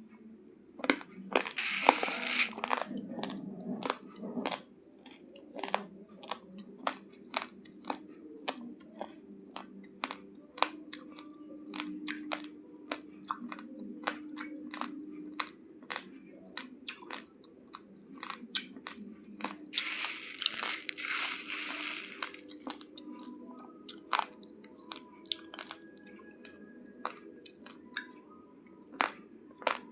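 Raw uncooked basmati rice grains being crunched between the teeth: a long run of sharp, dry cracks at about two a second. Two longer, noisier bursts stand out, one shortly after the start and one about two-thirds through.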